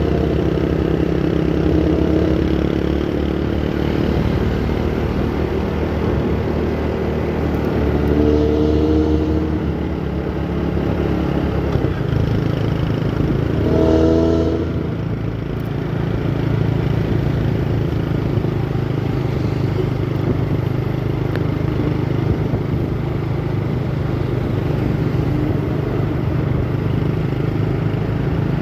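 Bus engine running on the road through its modified growling 'ngorok' exhaust, a steady low drone. Short pitched tones sound twice, about a third of the way in and again about halfway through.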